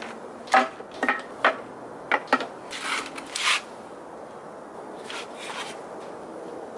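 Kindling wood clattering into a steel fire-pit bowl: a string of sharp wooden knocks as the sticks are laid in, then a short scratchy rasp as the fire is lit.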